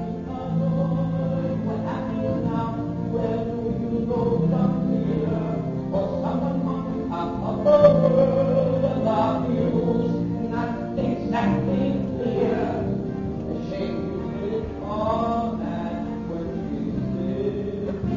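A stage-musical number: sung voices carry a melody over instrumental accompaniment.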